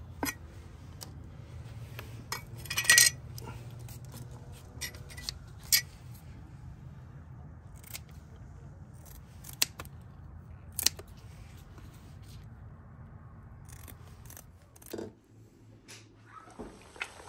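Knife scaling bluegills on a wooden stump: scattered scrapes and clicks, with a denser rasping cluster about three seconds in, over a steady low hum.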